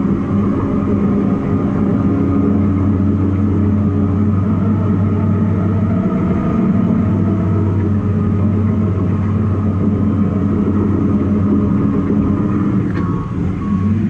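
Cat bulldozer's diesel engine running steadily under load while dozing, heard from inside the cab. Near the end there is a brief click, then a short run of evenly spaced high beeps.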